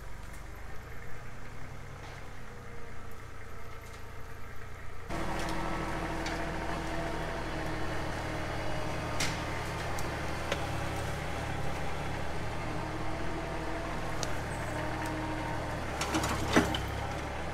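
Kubota tractor's diesel engine running steadily, louder and working harder from about five seconds in as it pulls on a standing dead maple that won't come down: the tractor doesn't quite have enough horsepower for it. A few sharp snaps, mostly near the end.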